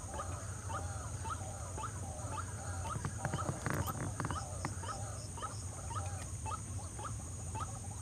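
White-breasted waterhen calling: a long run of short, repeated notes, about two to three a second, over a steady high whine and a low hum. A brief burst of noise comes about halfway through.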